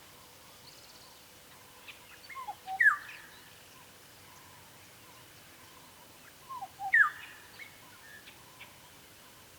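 Black-headed oriole giving two whistled phrases, a few seconds apart. Each phrase is a few soft, short notes followed by a loud whistle that slides down in pitch.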